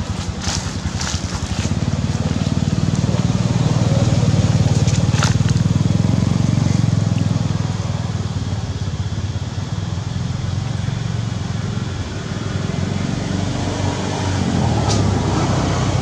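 A steady low rumble that swells a few seconds in and eases off, with a few short crackles of dry leaves.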